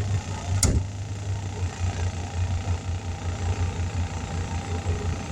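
A motor running steadily with a low, evenly pulsing hum. A short sharp sound is heard about half a second in.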